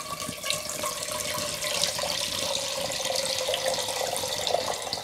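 Water pouring in a steady stream from a ceramic jug into an earthenware pot, filling it.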